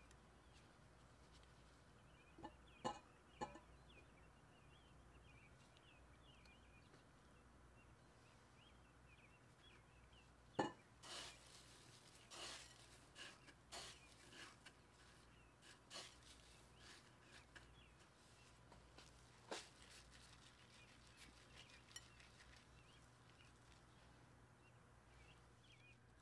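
Very quiet coating of a potato ball: a few soft taps, a sharper tap about ten seconds in, then a scattered run of light crunching rustles as the ball is rolled in dry breadcrumbs.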